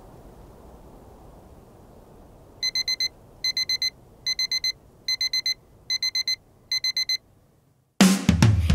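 Electronic alarm clock beeping: six evenly spaced groups of four quick, high beeps, then it stops. Loud music starts near the end.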